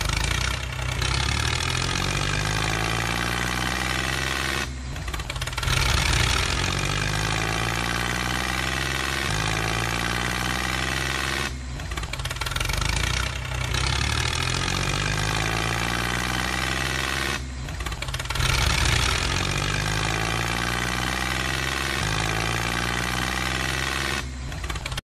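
Tractor engine sound that revs up and settles back, over and over in an identical cycle about every six to seven seconds, with a short drop in level between cycles.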